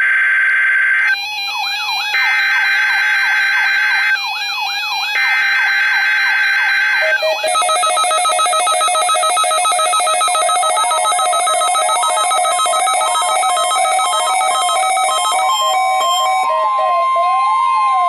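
Emergency Alert System Required Weekly Test received on a Midland NOAA weather alert radio and heard through its speaker. Three screechy digital header bursts, about a second each, come over the first seven seconds with a warbling alert tone in the gaps. The radio's alert siren then carries on as a multi-tone alarm sweeping up and down several times.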